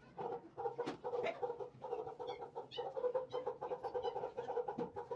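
Domestic fowl clucking in a steady run of short, quick calls.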